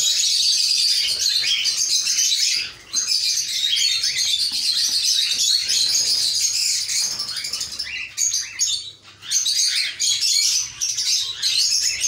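Many caged cockatiels chirping and calling at once, a dense, continuous high-pitched chatter of the whole breeding colony, dipping briefly about three seconds in and again near nine seconds.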